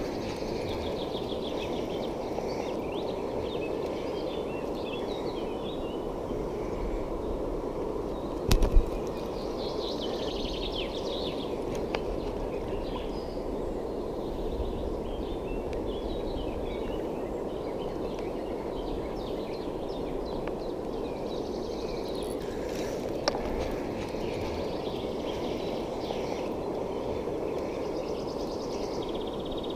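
Shallow river running over stones, a steady rushing, with small birds chirping over it. A couple of sharp knocks come about eight and a half seconds in.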